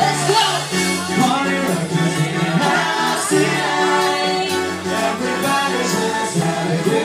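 Live band playing a song: a singer's voice over steady chords and a bass line, loud and unbroken.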